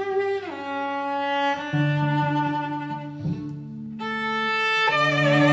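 Three cellos, all played by one cellist and layered, bowing sustained notes together. A lower part of long held notes enters a couple of seconds in, the sound thins and drops briefly past the three-second mark, then all parts return, louder, near the end.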